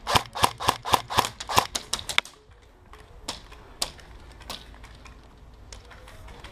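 Airsoft gun firing: a quick string of about ten sharp shots in the first two seconds, then three single shots spaced out after it.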